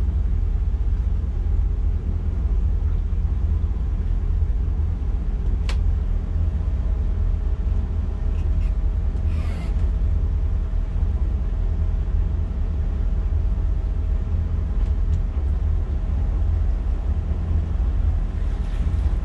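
Twin MerCruiser 7.4-litre V8 inboard engines running steadily underway, a deep even rumble heard at the helm, with a single sharp click about six seconds in.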